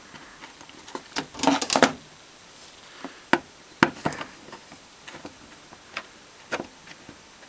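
Scattered clicks and taps of a screwdriver working screws into a car audio amplifier's metal heatsink bar, fastening the MOSFETs back down. A quick cluster of clicks comes about a second and a half in, then single clicks every second or so.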